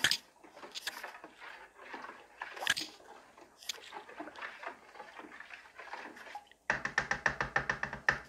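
A spoon stirring soapy water with vinegar in a plastic basin: irregular swishing and sloshing with light knocks. Near the end comes a fast, even run of taps, about eight a second, for a second and a half.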